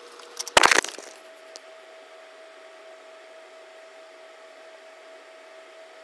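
Ceiling fan running with a steady whir and a faint hum, with a brief clatter of several clicks about half a second in.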